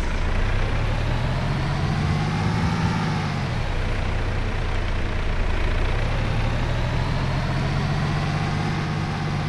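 Heavy truck's diesel engine running under load, its revs climbing and then falling back twice: once about three seconds in and again near the end.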